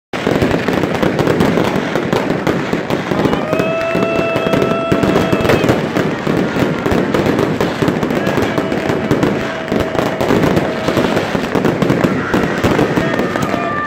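Dense, unbroken barrage of fireworks and firecrackers going off: rapid bangs and crackling with no pause. A steady held tone sounds over it for a couple of seconds at a time, about three seconds in, again near the middle, and near the end.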